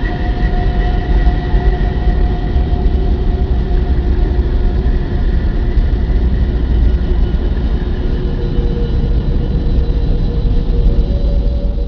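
Space-audio sonification: a loud, steady low rumble with a hiss over it and a few faint held tones, cutting off suddenly near the end.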